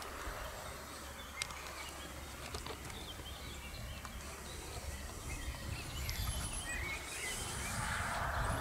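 Meadow ambience of small birds chirping and warbling, busier from about six seconds in, over a steady low wind rumble, with one brief click about a second and a half in.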